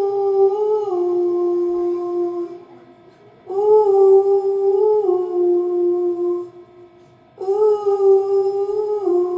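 A woman's voice singing a long "ooh" into a karaoke microphone, heard through its speaker with an echo effect. Three held notes, each dropping a little in pitch partway through, with short pauses between them.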